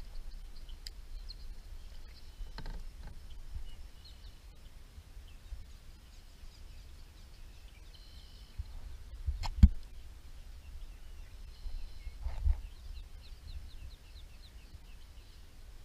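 Small birds chirping over a low steady rumble, broken by a few knocks; the sharpest knock comes about two-thirds of the way through.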